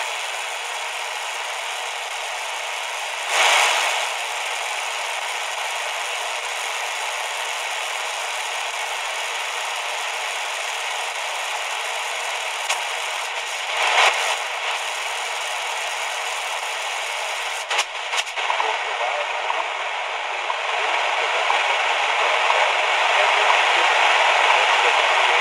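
Shortwave static hissing from a QFX R-39 portable radio's speaker as the dial is tuned slowly up its first shortwave band, around 4 to 5 MHz. There are a couple of brief louder swells and a few crackles, and the hiss grows louder over the last few seconds.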